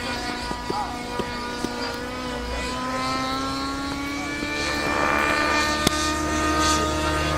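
Helicopter in flight: a steady engine and rotor whine that rises in pitch about two to four seconds in, then holds higher.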